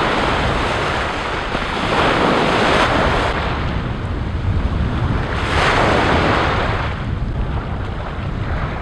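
Ocean surf breaking and washing up the beach in shallow water, swelling louder about two seconds in and again around six seconds, with wind buffeting the microphone.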